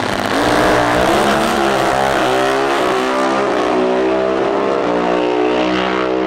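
Two Pro Stock drag-racing motorcycles launching and running at full throttle down the quarter mile. Their engine notes climb through the gears, the pitch breaking at each shift, with the level jumping up just after the start.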